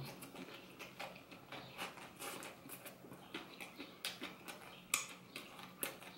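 A person chewing a mouthful of banh mi in crusty baguette: faint, irregular wet clicks and small crunches from the mouth.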